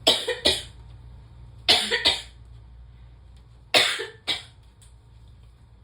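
A woman coughing in three short fits, each of two sharp coughs, about two seconds apart. Her throat is irritated by snorted Chhinkni sneezing powder that has run down it.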